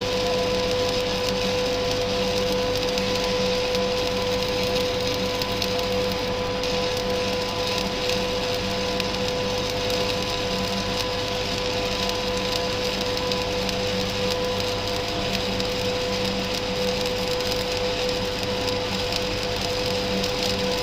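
Welding: a steady hiss with an unchanging hum under it, holding one pitch throughout.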